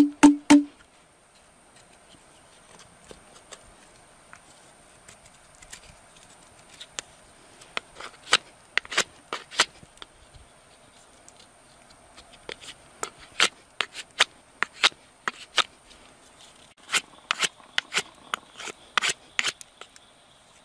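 Large knife carving mesquite wood: short, sharp shaving strokes of the blade on the wood, coming in bursts, after a few loud knocks right at the start.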